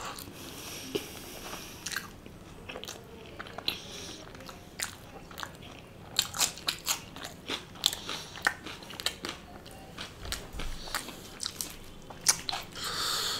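Close-miked eating of tandoori chicken: biting and chewing with crunches, in many short sharp strokes that come louder and more often from about halfway.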